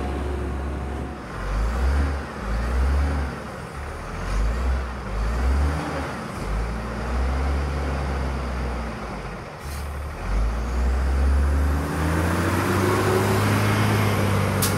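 Side-loader garbage truck's diesel engine revving up and down in repeated surges of a second or two as it works the truck's hydraulics, then holding a higher, rising rev near the end.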